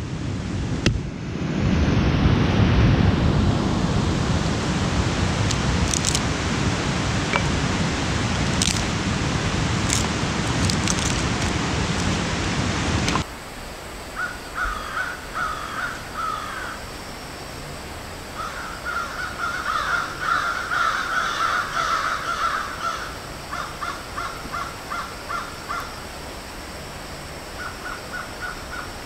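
A loud, steady rushing noise that cuts off suddenly about halfway through. Over a quieter background, a bird then gives repeated harsh calls, some in short runs of quick notes: crow-type cawing.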